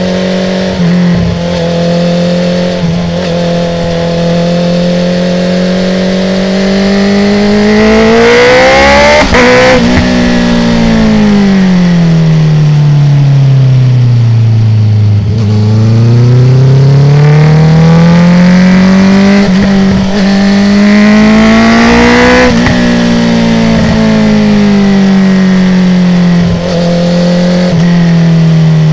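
Honda CB650R inline-four engine through a full Akrapovic exhaust with no dB killer, accelerating and slowing through corners: the pitch climbs, drops steadily for several seconds about a third of the way in, climbs again and then eases off near the end.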